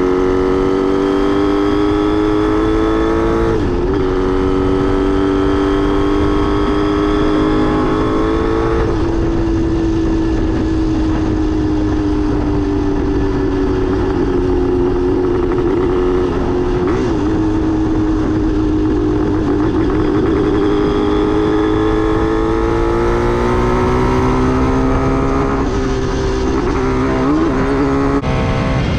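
Kawasaki 500 twin motorcycle engine heard from the rider's seat while riding on the road. It revs up through the gears with quick drops in pitch at the changes about four and nine seconds in, settles to a steadier cruise, then pulls up again near the end with another shift. Wind rushes underneath.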